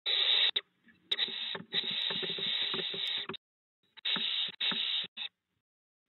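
Barn owlets giving raspy hissing calls: a short hiss, then a longer one of about two seconds, then another about four seconds in, each breaking off abruptly.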